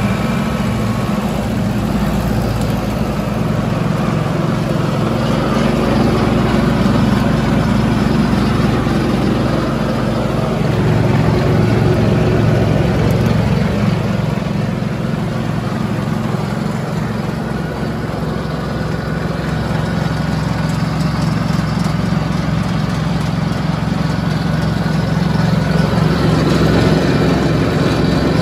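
Diesel engine of a 2008 Demag DF 65C asphalt paver idling steadily, a low hum whose lower notes shift a little about halfway through.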